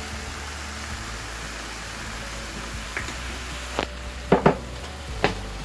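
Purslane frying in a pot with a low, steady sizzle. About four seconds in comes a quick run of sharp clinks as a utensil knocks against the cookware.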